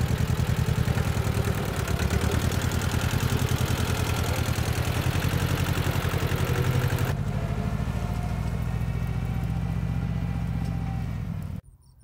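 Compact tractor engine running steadily with a fast, even pulse while it pulls a potato plow through the soil of a bed. The clattery upper part of the sound fades about seven seconds in, and the engine sound stops abruptly near the end.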